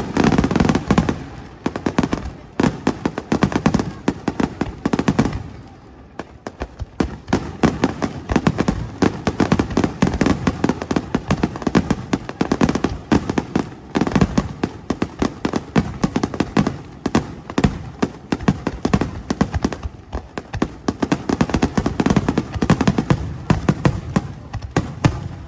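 Fireworks display: a dense barrage of bangs and crackles, many per second, easing briefly about six seconds in before carrying on.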